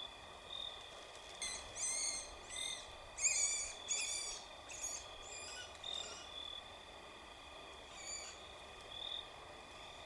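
A red-cockaded woodpecker giving a quick series of harsh, high squealing calls from about a second and a half in to six seconds, and one more near the end, as it is being taken from its roost cavity. Behind it, a steady high chorus of night insects.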